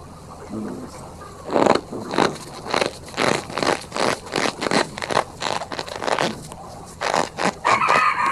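Powder of gym chalk mixed with cornstarch being squeezed and crushed by hand: a run of short squeaky, crunching squeezes, about two a second, starting about a second and a half in.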